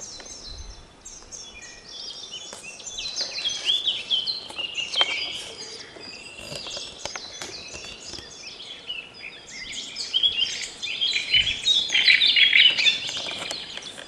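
Several songbirds singing at once: a dense run of overlapping chirps and trills that grows louder about three seconds in and again toward the end.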